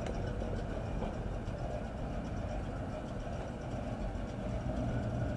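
Pickup truck engine running at low speed, a steady low sound as the truck rolls slowly through a parking lot.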